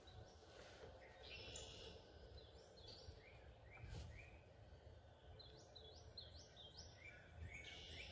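Near silence with faint bird calls: runs of short rising chirps, about two seconds in and again from about five seconds in.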